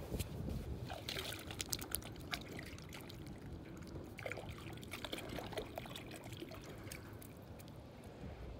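Faint water trickling and dripping, with many small irregular clicks and splashes.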